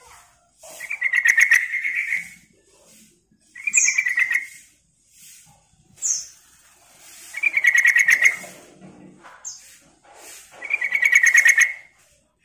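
Yellow-vented bulbul singing: four short, rapid, bubbly phrases about three seconds apart, with brief high notes in the gaps between them.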